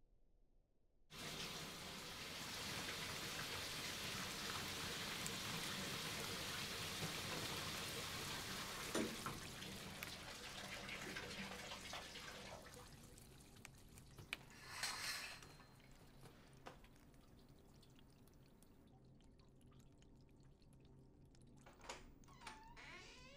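Shower water running, starting suddenly about a second in. It drops much quieter after about twelve seconds, with a few splashes and drips after that.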